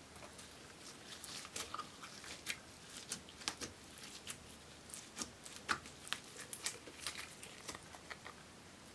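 Clear glitter slime packed with silver glitter and star sequins being kneaded and stretched by hand, making irregular sticky clicks and pops.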